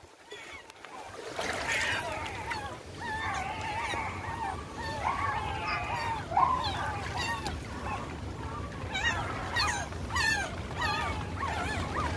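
Puppy whimpering and yelping in high, wavering cries, continuing throughout, with sharper yelps near the end.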